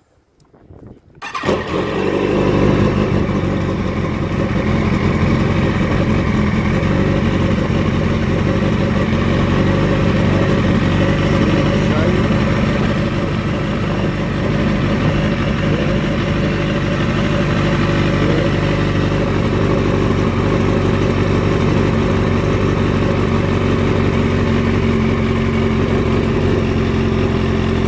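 Kawasaki ZX-10R's inline-four engine starting about a second in, then running steadily at idle.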